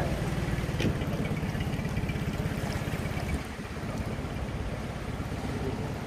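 Small dinghy's outboard motor running steadily at low speed, a fast even low rumble, with one sharp knock just under a second in and a short dip in the engine's level a little past three seconds in.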